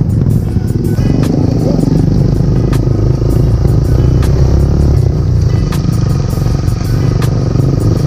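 Motorcycle running on the move, a loud steady low rumble with scattered short clicks.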